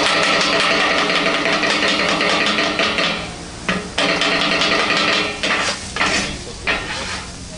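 Metal utensils clattering and scraping rapidly on a flat iron griddle as food is worked on it, with sizzling, over a steady hum. The clatter is continuous at first, drops off about three seconds in, then comes back in several short bursts with brief pauses.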